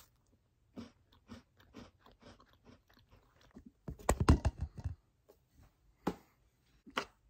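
Close-up chewing of a cookie: a run of small crunches, roughly two or three a second, for about three seconds. Then loud knocks and rustling as the phone is handled and moved, and two sharp knocks near the end.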